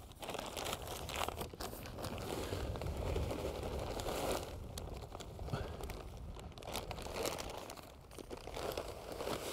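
Bag of damp loam crinkling and rustling as handfuls of soil are scooped out of it, with irregular small crunches and scrapes.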